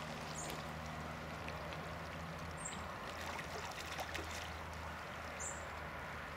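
Lake water at the shoreline while a hooked carp swirls and splashes at the surface under the bent rod, with a small bump in level about four seconds in. Under it runs a faint steady low hum, and three brief high chirps come a couple of seconds apart.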